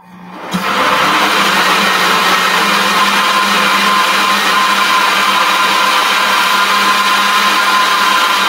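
Countertop blender switching on and running steadily at high speed, puréeing green plantains with a little added water into a smooth batter.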